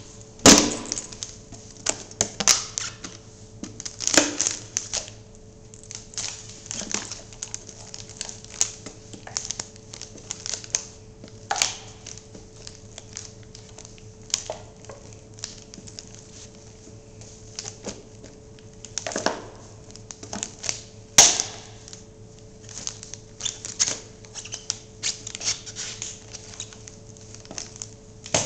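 Metal coffee can being stomped and crushed flat under sneakers: repeated sharp crunches and crinkling clanks of thin metal buckling, loudest just after the start and again at about four, nineteen and twenty-one seconds.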